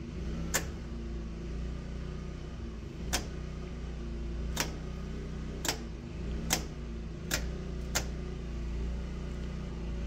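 Circuit toggle switches on a Reliance manual transfer switch being snapped one by one from line to generator: seven sharp clicks spread over about eight seconds, as the house circuits are moved onto generator power. A steady low hum runs underneath.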